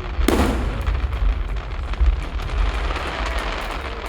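Aerial firework shells bursting: one deep boom about a third of a second in, then a dense crackle of many small pops that slowly dies away, over a continuous low rumble.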